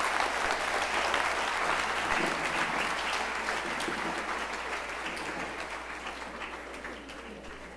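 Audience applauding, the clapping loudest at first and then gradually fading away over the last few seconds.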